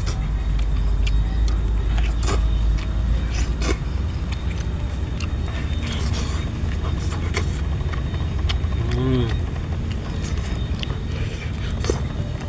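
A person eating a whole spit-grilled chicken, tearing the meat off with the teeth and chewing, with many sharp mouth clicks and smacks. Under it runs a steady low rumble, the loudest sound.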